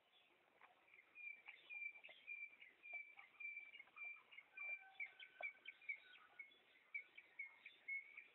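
A bird calling a long run of short notes at one steady pitch, about three a second, starting about a second in. It is faint, with a few light clicks among the calls.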